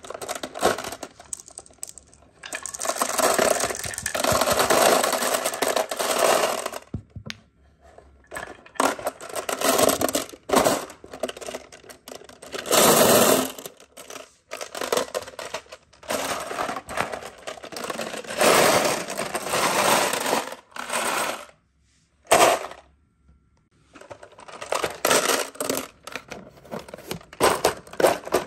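Glass marbles clattering and clinking against each other as they are pushed off a wooden slope into a clear plastic bottle and tumble around inside it, in bursts of a second or a few seconds with short pauses between.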